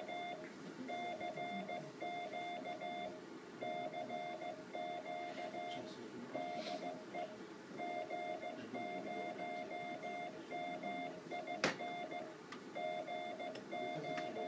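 Morse code sent as a keyed steady beep tone, short and long elements in groups with gaps between them: a CW call of CQ on the 500 kHz amateur band. A single sharp click is heard about three-quarters of the way through.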